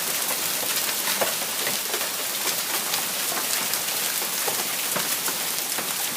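Hailstorm of golf-ball-size hailstones falling hard and straight down: a dense steady patter with many sharp individual hailstone impacts scattered through it.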